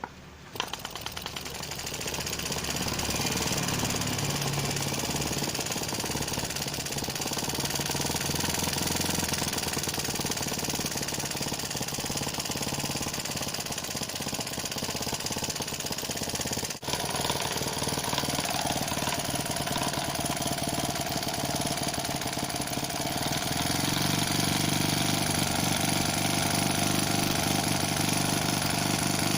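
A homemade four-stroke engine built from a refrigerator compressor, running with a rapid, rattling beat. It picks up about half a second in, cuts out for an instant just past the middle, and its low note grows stronger about three-quarters of the way through.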